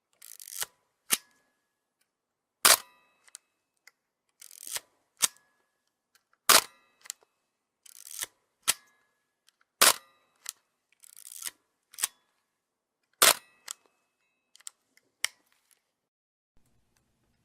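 DSLR camera shutter clicking repeatedly: four loud, sharp shutter clicks about three and a half seconds apart. Between them come lighter mechanical clicks and a short rising whirr.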